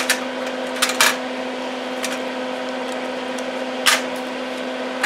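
Steady hum of a small fume-extractor fan, a Hakko smoke absorber. Over it come a few brief clicks and rattles as small metal burner tips are handled in a tin, twice about a second in and once near four seconds.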